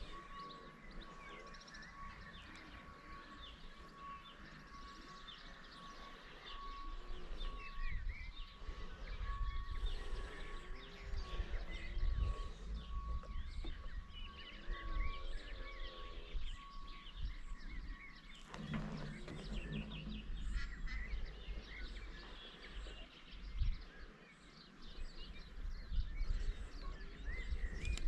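Outdoor ambience with many small birds chirping and calling, and low rumbling like wind on the microphone. A steady pulsing high tone runs under it and stops about two-thirds of the way through.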